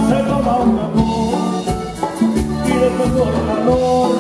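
Norteño band playing live through a stage PA: a melody in held, stepping notes over drum kit, bass and percussion.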